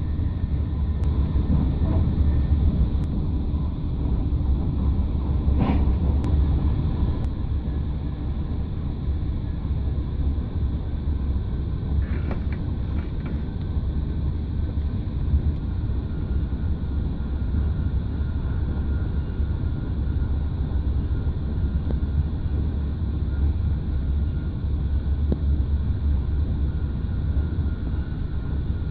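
TGV high-speed train running at speed, heard from inside the coach: a steady low rumble, with a faint knock about six seconds in and a few light clicks about twelve seconds in.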